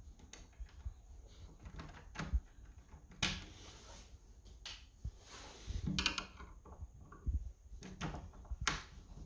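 Old door handle being worked off a door by hand: scattered metal clicks and knocks, with two short scraping noises, as its screws are taken out.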